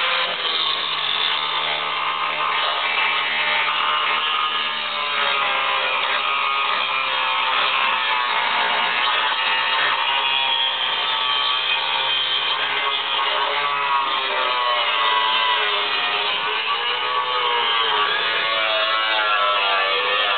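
Power grinder grinding sheet steel around the car's floor opening to bare metal for MIG welding in a new floor pan. It runs continuously, its pitch wavering as it bears on the metal, more so in the second half.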